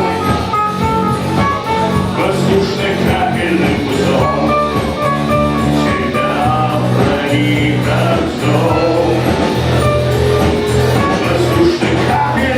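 Rock band playing live: bass, guitar and drums with a steady beat, and a sung voice at times.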